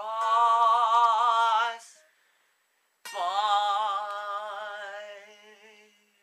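A young man singing two long, drawn-out notes with a wide vibrato, without words. The first lasts about two seconds; the second starts sharply about a second later and fades away over about three seconds.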